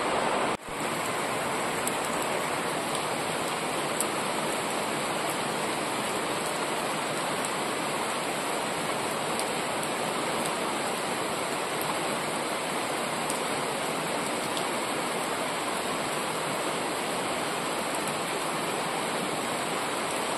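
Rain falling steadily on trees, shrubs and lawn, an even hiss, with a brief break in the sound just after the start.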